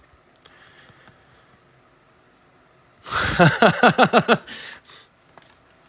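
Quiet room tone for about three seconds, then a man's voice for about a second and a half: a quick string of short pitched syllables, with no clear words.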